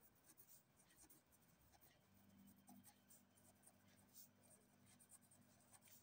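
Very faint scratching of a ballpoint pen writing on notebook paper, with a faint steady low hum coming in about two seconds in.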